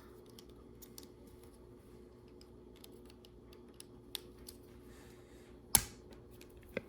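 Lego Technic plastic pieces clicking and tapping as they are handled and fitted together, in sparse faint clicks, with one sharp, louder click a little before the end and a smaller one just after it.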